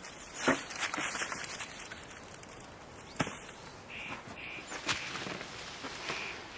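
A bird calling, the same short note repeated about twice a second from about four seconds in, over a few scattered knocks.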